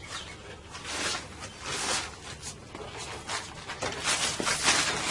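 Rubber windshield molding being pressed and slid along the glass edge, rubbing and rustling in several bursts about a second apart. Birds chirp faintly in the background.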